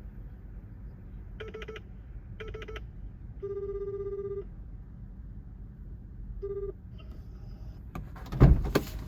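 Four electronic-sounding beeps at one pitch: two short, one held about a second, then one more short. They play over a steady low rumble of surf and wind. A loud knock of handling noise comes near the end.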